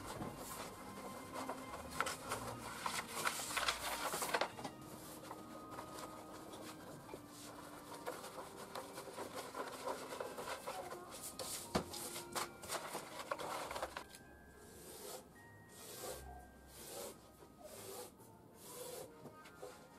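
Large sheet of fusuma paper rustling and rubbing against a plywood workbench as it is unrolled, flipped and laid flat by hand, in irregular strokes that are densest a few seconds in and sparser near the end.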